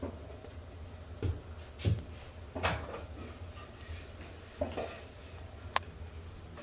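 Tools and a small piece of wood being handled while patching a stripped hinge screw hole: about six separate light knocks and clicks, one sharp click near the end, over a steady low hum.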